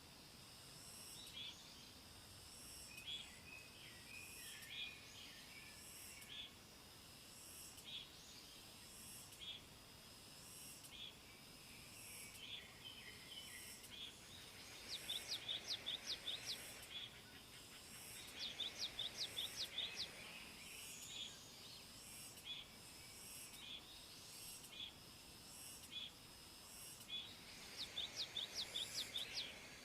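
Birds and insects: a bird calls in three quick runs of about ten sharp notes each, over steady, evenly repeating faint insect chirping and scattered short chirps.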